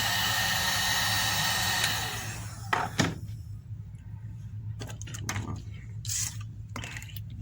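Hot-air blower running steadily, heating the home button area of an iPhone 7 so the home button comes free easily; it is switched off about two seconds in. A few light clicks and taps follow.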